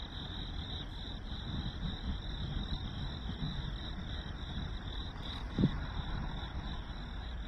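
Crickets chirping in a steady high trill over a low, rumbling background, with a single short low thump about five and a half seconds in.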